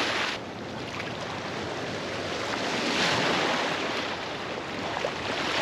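Small waves splashing and washing against a rocky riverbank, swelling about three seconds in.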